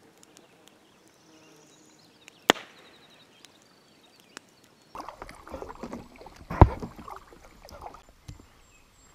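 Close handling noise in an inflatable pack raft: knocks and rubbing as the fishing rod and gear shift against the raft. A sharp knock comes about two and a half seconds in, and a louder one near seven seconds.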